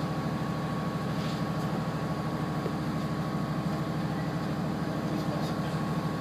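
Diesel railcar engine idling steadily, heard from inside the carriage, with an even low pulsing and a thin steady whine above it.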